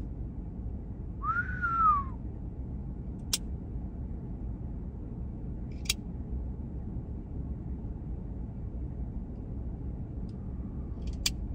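Titanium bolt-action pen's bolt clicking sharply three times, a few seconds apart, over a steady low rumble. About a second and a half in, a short whistle rises and then falls in pitch.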